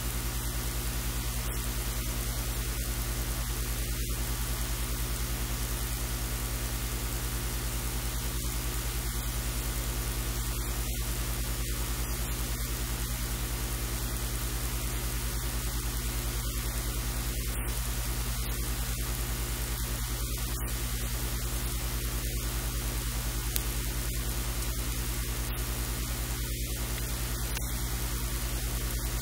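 Steady electrical hum with a stack of overtones under a constant hiss, unchanging throughout.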